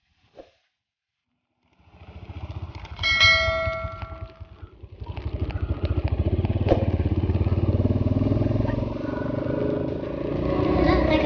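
A motor vehicle engine starts about two seconds in and settles into steady running with a fast, even pulse. A brief pitched tone sounds over it about a second after it starts.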